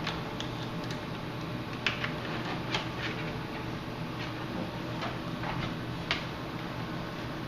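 Scattered light clicks and taps of a temperature gauge being handled and pulled out of a helmet, over the steady hum of the helmet's small 12-volt fans.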